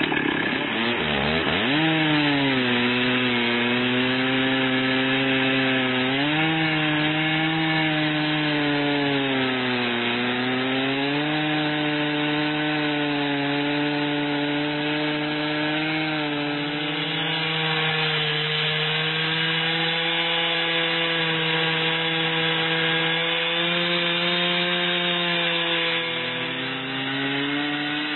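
Chainsaw in an Alaskan mini mill ripping a lengthwise edging cut down a log at full throttle. It revs up over the first couple of seconds, then runs steadily, its pitch sagging and recovering several times as the chain loads in the cut.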